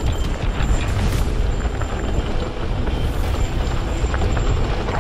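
Mountain bike riding fast down a dry dirt singletrack: tyres rolling over dirt and small rocks, with the bike rattling and clicking over the bumps. Wind buffets the action camera's microphone, giving a heavy low rumble.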